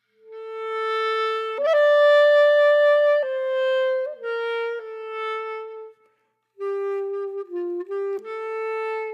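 Background music: a slow solo melody of long held notes stepping between pitches, with a brief break about six seconds in.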